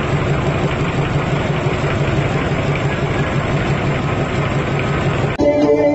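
Loud, dense street-procession din with a low, pulsing engine-like rumble, such as from the float's engine. It cuts abruptly to music near the end.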